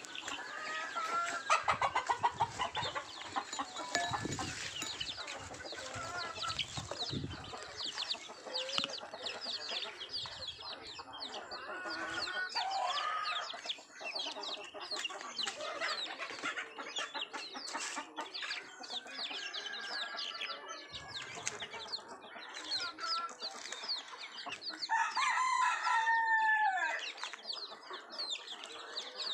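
A flock of young chickens clucking, with a steady stream of high, short peeps. Louder calls come every so often, and the loudest is a longer call of about two seconds near the end.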